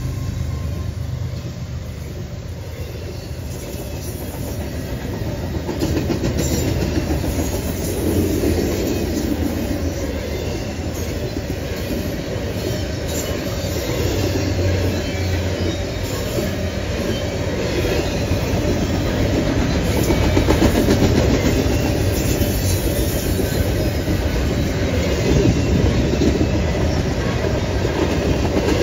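Double-stack container freight cars rolling steadily past: a continuous rumble of steel wheels on rail, with a repeating rhythm of wheel sets crossing rail joints.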